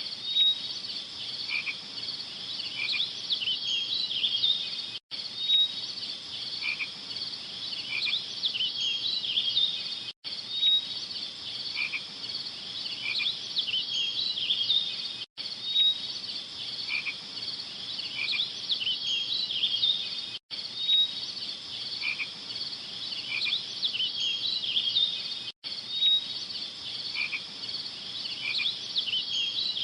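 Chorus of calling frogs and insects, dense high chirps and trills. It is a short loop of about five seconds repeating over and over, with a brief dropout each time it restarts.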